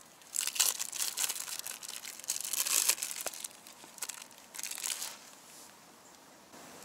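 Thin plastic packaging crinkling in irregular bursts as sliced cheese is peeled from its film and handled, dying down about five seconds in.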